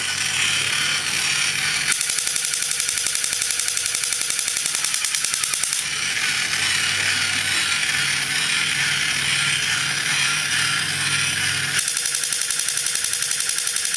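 Fast mechanical clicking like a ratchet, over a steady low hum; the sound changes abruptly about two, six and twelve seconds in.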